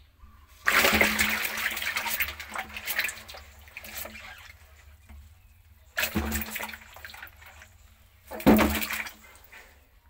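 Water splashing and sloshing in a tub crowded with frogs, in three bursts: a long one starting about half a second in, and shorter ones about six and eight and a half seconds in.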